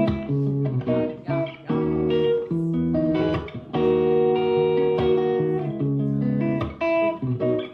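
Solo guitar playing ringing chords, picked and strummed, with short gaps between phrases.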